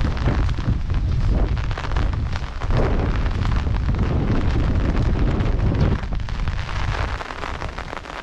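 Wind buffeting the microphone in a gusty low rumble over a steady hiss of rain. The gusts ease off about six seconds in.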